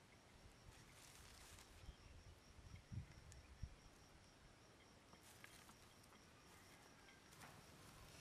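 Near silence: faint outdoor background with a faint steady high tone and a few soft knocks and rustles.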